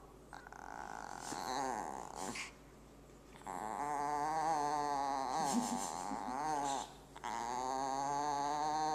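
A dog growling and whining in high, wavering pitches while pulling at a toy in a tug of war, in three long stretches with short breaks about three and seven seconds in.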